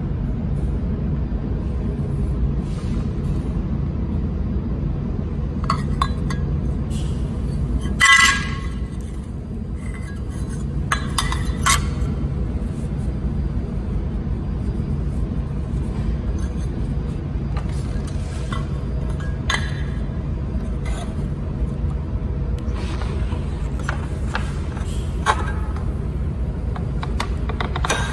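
Aluminium workpieces clinking and knocking sharply a few times as they are handled and set down, the loudest about a third of the way in, over a steady low hum.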